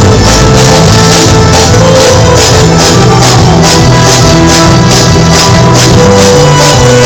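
Loud dance music with a steady beat: a bass line moving under bright shaker- or tambourine-like strokes about three times a second.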